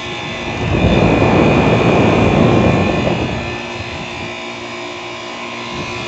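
Two outdoor air-conditioner condensers, one a Carrier Weathershield with a Bristol reciprocating compressor, running together with a steady hum of compressors and fans. About a second in, a louder rush of noise swells for a couple of seconds and then settles back.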